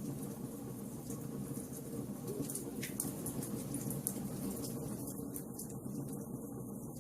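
Wood fire crackling, with scattered sharp snaps and pops over a steady low rumble of burning.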